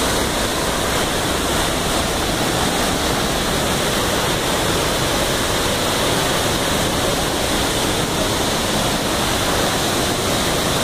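Waterfall plunging into a rock pool: a loud, steady rush of falling water with no let-up.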